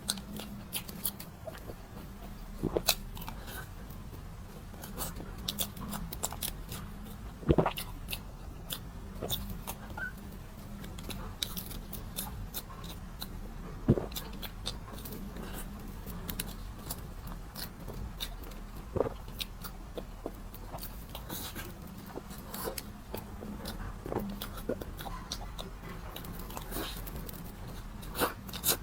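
Close-miked eating of a small pistachio cake: chewing and mouth sounds with scattered sharp clicks, over a steady low hum.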